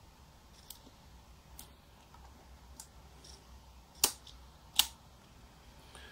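Small mechanical clicks from handling a Yashica Electro 35 GSN camera with its top cover off: a few faint ticks, then two sharp, louder clicks less than a second apart about four seconds in.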